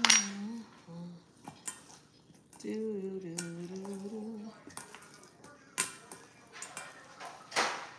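A metal fork clicks sharply against a plastic cutting board as a tendon is pulled from a raw chicken tenderloin, followed by a couple of seconds of low humming and a few light knocks and a rustle.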